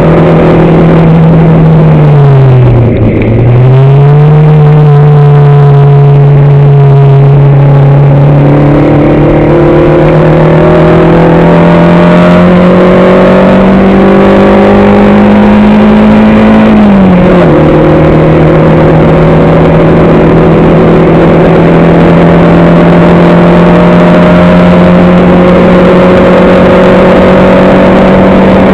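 A racing engine heard from on board, loud throughout. About three seconds in the revs fall steeply and climb back. They then rise slowly, drop sharply just past the middle, typical of an upshift, and hold steady to the end.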